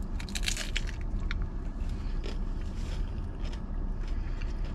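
Crunching of a thick, crispy fried corn tostada shell being bitten and chewed: a cluster of sharp crackles about half a second in, then a few single crunches, over a steady low rumble inside the car.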